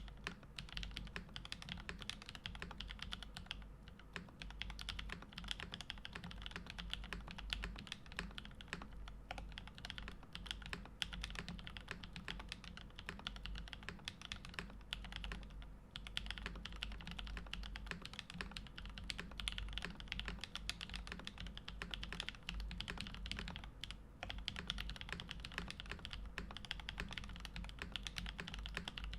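Steady fast typing on a stacked-acrylic custom mechanical keyboard with lubed Kinetic Labs Husky linear switches and GMK keycaps, a deep-sounding stream of keystrokes with a few brief pauses.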